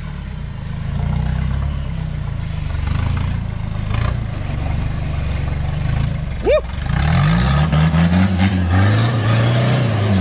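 Modified Toyota Hilux 4x4's engine working at low revs as the truck crawls up a rock ledge. It revs harder, rising in pitch and getting louder, from about seven seconds in.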